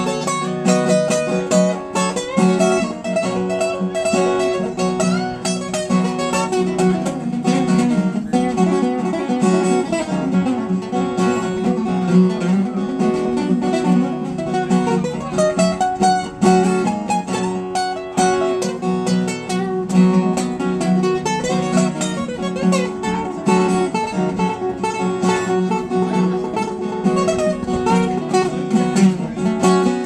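Acoustic guitar played solo through a small PA, an instrumental of quick picked notes over steady low ringing notes, without singing.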